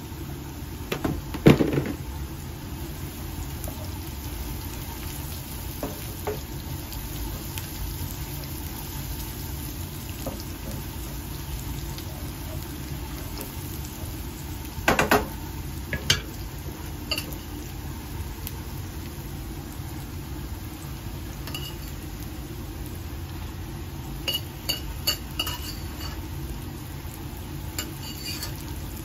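Food frying in oil in a nonstick pan with a steady low sizzle. Utensils knock and scrape against the pan as it is stirred, sharply about a second and a half in and again around fifteen seconds in. A few light clinks of utensils come near the end.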